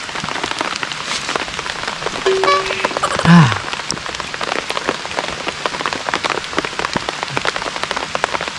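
Steady rain, a dense even patter of drops hitting the ground and leaves. A person's voice briefly hums and then exclaims about two to three seconds in.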